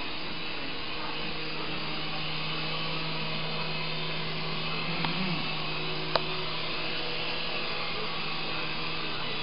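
Small red S107G-type coaxial remote-control helicopter's electric motors and rotors buzzing steadily as it flies low, with a sharp tick about six seconds in; the buzz cuts off near the end.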